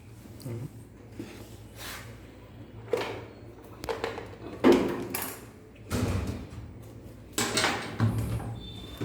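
Irregular knocks and clunks, about seven in all, the loudest about four and a half seconds in, over a low steady hum: hands and tools at work on the lift's machinery.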